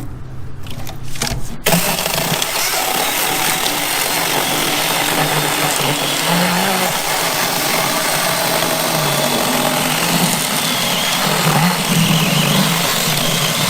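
Small cordless Goyqgle mini chainsaw cutting through a log: after a couple of seconds of lighter running, the chain bites into the wood and a dense, steady cutting noise carries on to the end.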